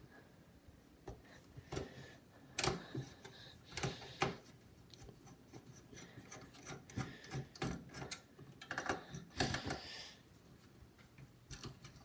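Phillips screwdriver turning out the captive screws of a CPU heatsink-and-fan assembly: irregular small clicks and short metal scrapes, with a few louder ones now and then.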